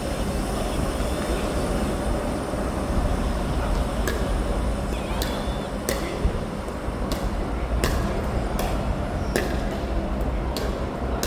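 Pickleball paddles popping a plastic ball back and forth in a soft dink rally: sharp, short pops about once a second from about four seconds in, over a steady low rumble.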